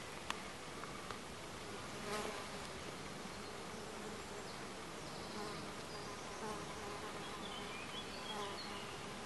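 Flying insects buzzing, with one passing close and louder about two seconds in. A single sharp click comes just after the start.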